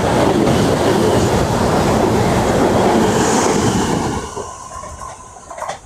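South Western Railway train passing close by: a loud rumble of wheels on rails that falls away sharply about four seconds in, with a short knock just before the end.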